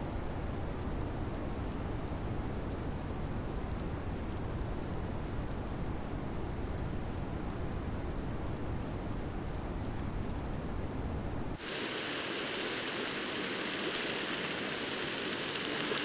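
Steady wind rumble with faint scattered crackles. About two-thirds of the way through it cuts abruptly to the steady hiss of steam venting from a geothermal sulfur fumarole.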